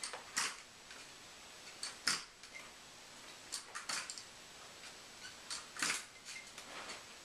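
A few sharp, irregular clacks from a folding aluminium walker and hard plastic KFO leg braces as a man in the braces swings his locked legs forward one step at a time.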